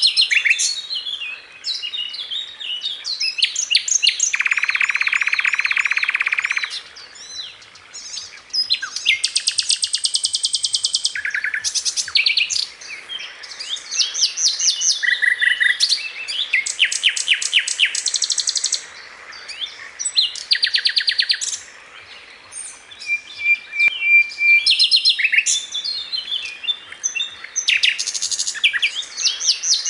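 Sikatan londo songbird singing a long, varied song: fast rattling series of repeated notes, buzzy trills and short clear whistles, with brief pauses between phrases.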